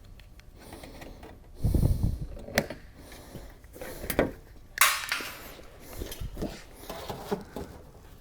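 Sheet-metal flashing being cut with snips and handled: scattered metallic clicks and knocks, a dull thump about two seconds in, and a brief scrape of metal around the middle.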